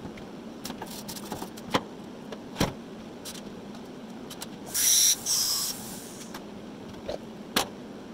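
Workshop sounds between TIG welds: a steady low hum under scattered light clicks and knocks of handling on the aluminium hull, and two short bursts of hiss about five seconds in.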